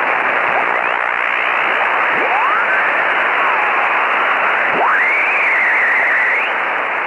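Radio receiver static: a steady, narrow, muffled hiss like single-sideband shortwave audio, crossed by whistles that slide up and down in pitch as if the dial were being tuned across signals. One whistle rises about two seconds in, and a stronger one sweeps up about five seconds in and wavers before fading.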